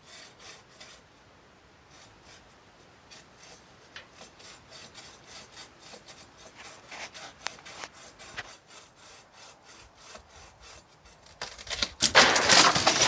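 Handsaw cutting a dead tree limb in steady back-and-forth strokes, then a loud cracking crash about a second and a half before the end as the limb breaks.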